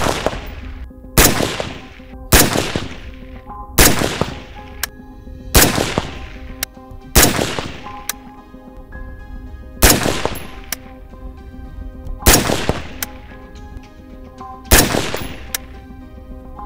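Single shots from a PSA AR-15 rifle fired slowly, about eight of them one to two and a half seconds apart, each followed by a short fading echo. This is deliberate aimed fire to shoot an accuracy group after more than 4,000 rounds.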